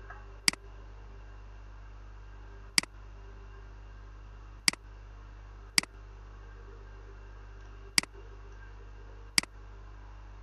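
Computer mouse clicking six times at uneven intervals of one to two seconds, each click placing a point with the pen tool. A steady low electrical hum runs underneath.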